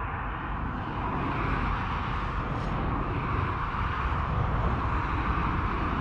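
Steady outdoor background noise: a low, unsteady rumble under a hiss, a little louder from about a second in.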